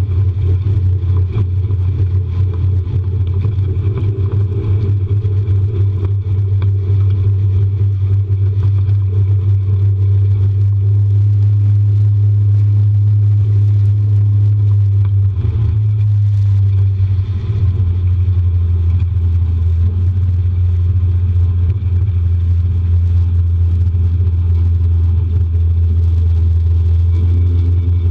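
Mercury 80 hp outboard motor running steadily as the rigid inflatable boat moves under way, a loud, even low drone. About halfway through, the note shifts briefly, then settles again.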